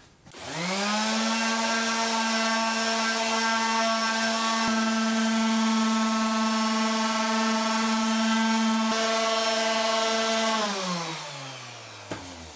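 Electric random orbital sander sanding a stone pine board: the motor spins up quickly about half a second in, runs with a steady hum, and is switched off near the end, its pitch falling as it spins down.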